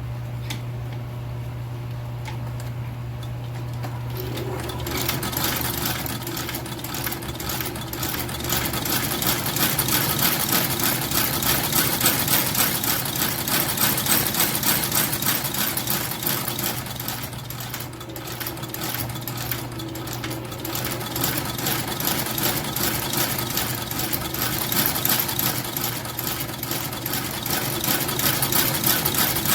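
Shoe-repair sole stitching machine: its motor hums, then about four to five seconds in it starts sewing, a fast steady run of needle strokes stitching on a leather half sole.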